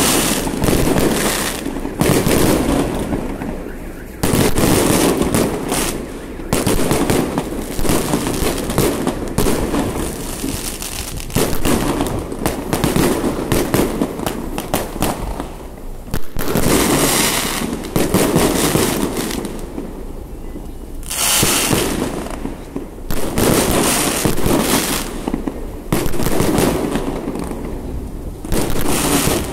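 Fireworks salute: shells bursting in rapid, dense volleys of crackling bangs, with brief lulls between volleys.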